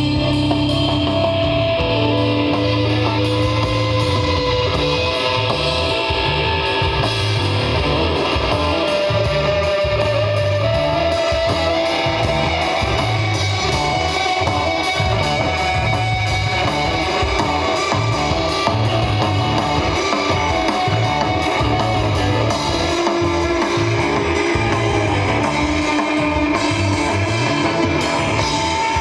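Live desert rock jam: electric guitar lines over bass guitar and a drum kit, playing steadily.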